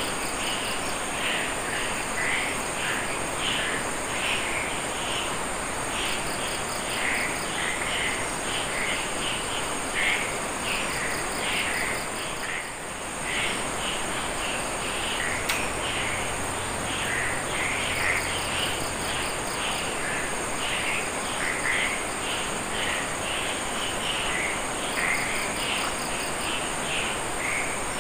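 Night chorus of crickets and other insects: a steady high-pitched buzz with rhythmic trilling pulse trains and many short chirping calls repeating throughout, over a steady hiss.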